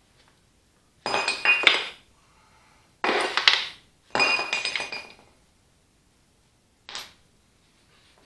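Steel wheel clamps clanking and ringing against the steel rim of a tractor rear wheel as they are worked off: three rattling bursts of about a second each, then one lighter clank near the end.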